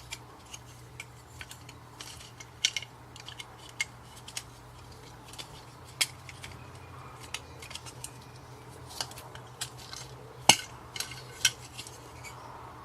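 Irregular sharp clicks and light clatter of small hard objects being handled, the loudest knock about four-fifths of the way through, over a faint steady hum.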